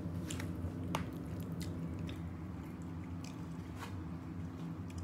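Close-up eating sounds: wet chewing and squishing of spaghetti, with a few sharp clicks of forks on a plastic bowl and plate, over a steady low hum.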